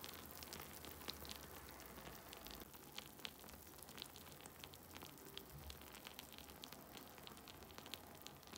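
Faint, scattered crackling and sizzling from a freshly baked potato, eggplant and tomato gratin in its ceramic dish, over a low room hum.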